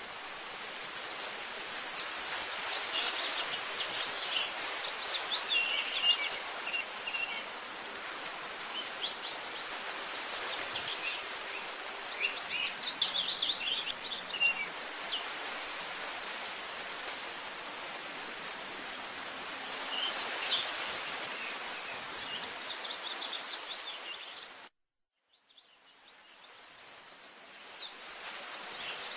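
Outdoor birdsong: several birds chirping and trilling over a steady rushing hiss of background noise. The sound cuts out for a moment near the end and then fades back in.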